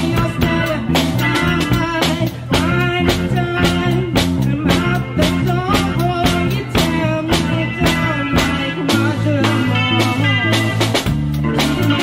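Live band playing a song: electric guitar and electric bass over a drum kit keeping a steady beat.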